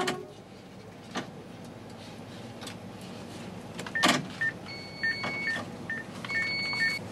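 Low steady running hum inside a Taiwan High Speed Rail 700T driver's cab as the train pulls away, with a couple of clicks. From about four seconds in, the cab equipment sounds a series of short electronic beeps and two longer beep tones.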